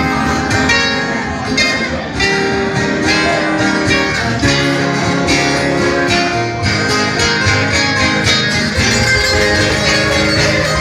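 Live acoustic string music with no singing: strummed and plucked guitars with a viola caipira playing a rhythmic instrumental introduction.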